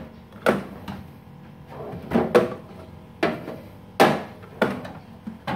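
Open metal drawer of a tool box trolley being handled: about seven sharp knocks at irregular spacing as a hand bumps and taps around inside it, each with a short ring.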